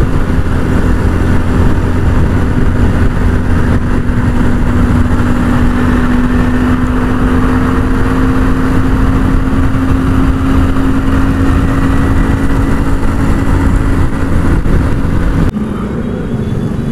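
Suzuki GS 150 single-cylinder four-stroke motorcycle engine running at a steady cruising speed, with heavy wind rush on the rider's microphone. About 15.5 seconds in, the sound cuts suddenly to a quieter, lower level.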